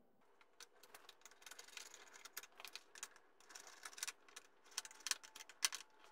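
Plastic air filter cover on a Briggs & Stratton mower engine being fitted over a new filter and screwed down with a screwdriver: a quick run of light plastic clicks and rattles, the sharpest click about five and a half seconds in.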